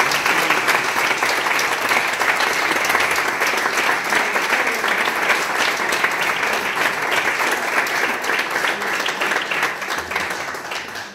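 An audience of a few dozen people applauding steadily, the clapping dying away near the end.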